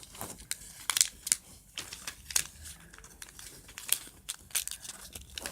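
A sheet of paper rustling and crinkling as it is handled, with irregular sharp crackles.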